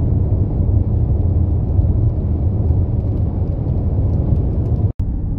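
Steady low rumble of tyre and engine noise inside a car cabin at highway speed. The sound cuts out for an instant near the end.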